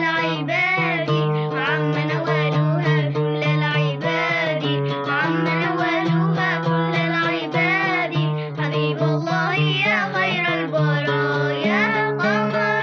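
Two young girls singing an Arabic song together, accompanied by a plucked string instrument.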